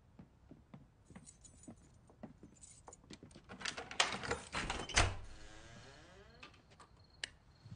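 Keys jangling and rattling in a door lock, then a loud knock about five seconds in as a trailer's front door is pushed open, with one sharp click near the end.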